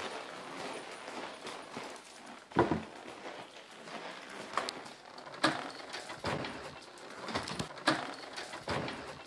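Scattered knocks and clicks of movement on a tiled floor, a person walking and a dog on a leash, with the loudest a low thump about two and a half seconds in; near the end a door lock being worked clicks a few times.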